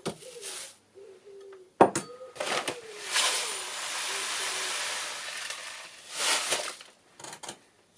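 Cat litter granules being poured into a half-litre measuring jug: a knock about two seconds in, then a steady hiss of pouring litter for about three seconds, a second short pour near the end, and a few light clicks.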